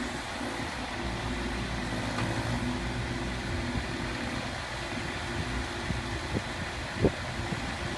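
Engine of a small construction machine running steadily, with scattered knocks and one sharper clank about seven seconds in.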